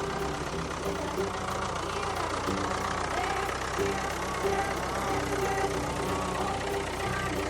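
Engine of an animated farm loader running steadily at a low, even idle-like hum, a cartoon sound effect.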